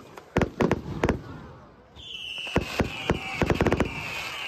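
Fireworks display: aerial shells bursting with sharp bangs. About halfway through a long whistle begins, slowly falling in pitch, while a quick run of bangs goes off over it.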